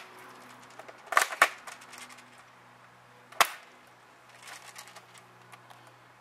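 AK airsoft rifle firing sharp, snapping shots: a quick pair about a second in and a single shot about two seconds later, with a few faint ticks between, over a faint steady hum.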